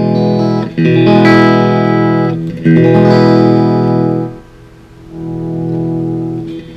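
Electric guitar chords played through an Ernie Ball VP Jr. volume pedal fitted with a new 500K pot, testing it after the repair. Each chord rings for a second or two; some start suddenly, one fades out a little past the middle, and the next swells up gradually as the pedal is rocked.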